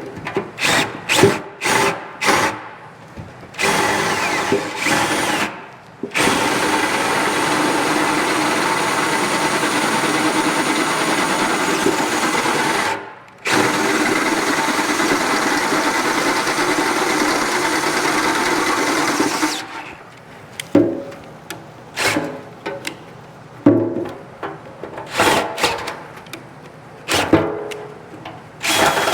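DeWalt drill with an 11/16 bit boring the threads out of a steel nut: the drill runs in short stop-start bursts at first, then in two long steady runs with a brief stop between them, and goes back to short bursts and knocks near the end.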